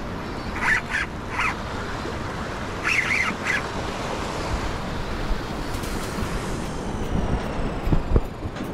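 Wind buffeting the microphone over the wash of surf. Two short clusters of high-pitched sounds come through about a second and three seconds in, and a couple of dull thumps sound near the end.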